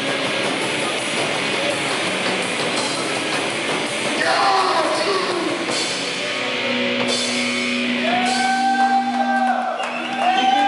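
Live rock band playing loud: distorted electric guitar, bass guitar and drums, with vocals over the top.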